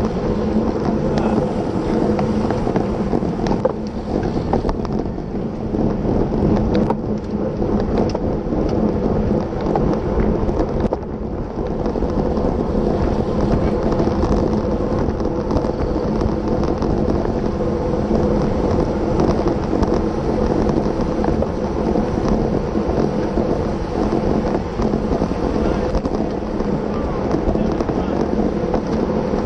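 Wind rushing over the microphone of a bicycle-mounted camera at racing speed, with tyres rolling on the asphalt and the bikes of a tight pack of racing cyclists around it: a steady rumble.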